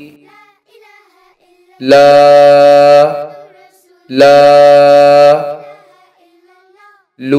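A voice reading the Arabic syllable "lā" twice, each time holding the long ā at one steady pitch for about a second, the prolonged madd vowel. Faint background music plays between the two.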